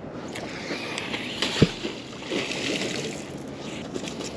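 Water sloshing and wet rope rasping as a fishing magnet is hauled in hand over hand on its rope, with one dull thump about one and a half seconds in.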